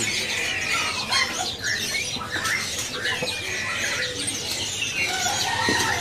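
Many caged songbirds calling at once: a dense mix of short chirps and gliding whistles.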